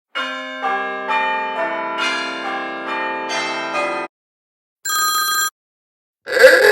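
A run of bell-like chime notes struck one after another, each ringing on so that they pile up into a chord over about four seconds. It is followed by a short, high metallic ding, and near the end a loud, noisy sound with rising and falling pitch begins.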